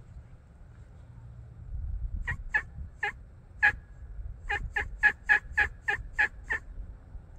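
Turkey yelping: four spaced yelps, then a quicker string of about eight, each a short sharp note.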